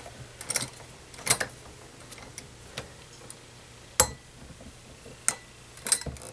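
Winged corkscrew's metal parts clicking and ticking against a glass wine bottle as it is worked to draw the cork; irregular sharp clicks, the sharpest about four seconds in with a brief ring.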